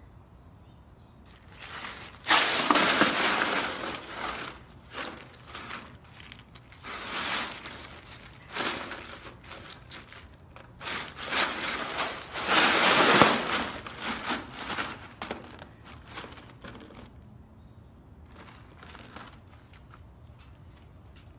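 Ice cubes crunching and clattering as a husky shifts and rolls in a plastic pool full of loose ice. The noise comes in several spells of crackling, the loudest starting about two seconds in and another around thirteen seconds, then thins to faint scattered clinks near the end.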